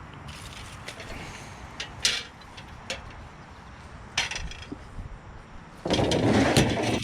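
Scrap being handled: a few sharp knocks and clinks, then a loud scraping rattle lasting about a second near the end.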